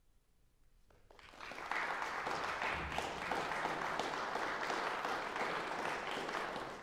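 Audience applause, starting about a second in, swelling quickly and then holding steady as many hands clap together.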